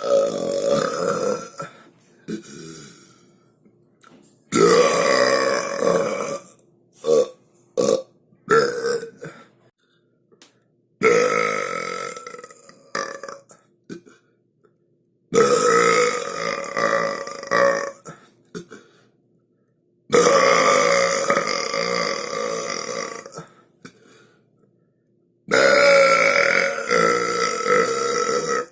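A series of loud, long human burps: about six drawn-out belches of two to three seconds each with a steady pitch. A quick run of three or four short burps comes about a third of the way through, and sudden silent gaps lie between them.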